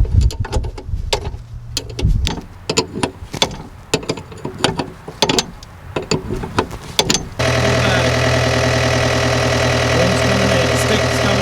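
Background music with sharp percussive beats, then an abrupt cut about seven seconds in to the Yanmar B6 mini excavator's diesel engine idling steadily.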